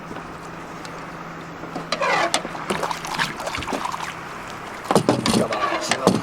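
Bowfishing boat's motor running with a steady low hum. About two seconds in comes a burst of noise, and near the end several loud knocks and clatter, as of gear or fish on the boat's deck.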